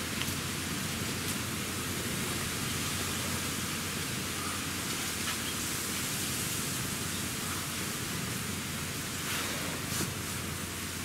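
Steady, even outdoor background hiss with no voice or meow, and a few faint clicks near the end.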